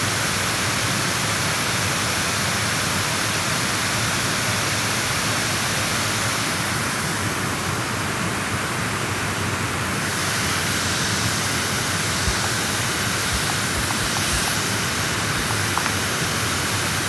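Steady rushing hiss with no distinct events, and a few soft low thumps about twelve to fifteen seconds in.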